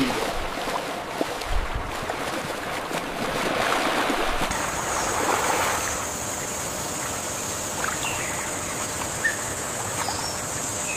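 Shallow stream water rushing and splashing. About four and a half seconds in, a steady high-pitched hiss joins it and holds.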